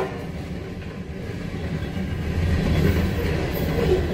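Florida East Coast Railway freight train rolling through a grade crossing: a steady low rumble of its cars' wheels on the rails, getting louder over the last couple of seconds.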